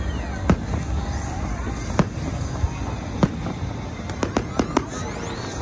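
Fireworks going off: single sharp bangs about a second or so apart, then a quick volley of several cracks about four seconds in, followed by a rising whistle near the end.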